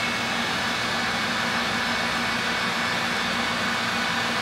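Electric heat gun running: a steady rush of blown air with a low motor hum, shrinking heat-shrink tubing over a spliced wire.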